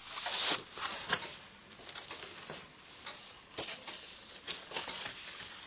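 Sheets of paper being handled: a brief sliding rustle at the start, then scattered soft taps and rustles.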